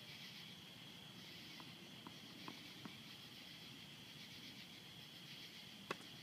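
Faint, distant tennis play on a hard court: a ball bounced four times, then a sharper crack of racket on ball near the end as the serve is struck. Under it runs a steady high insect drone.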